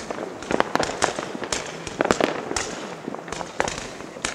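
Fireworks going off: an irregular series of sharp bangs and cracks, a few a second.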